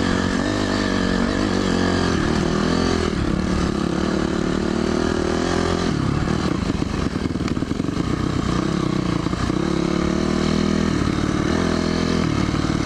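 Dirt bike engine running while being ridden, its revs rising and falling again and again.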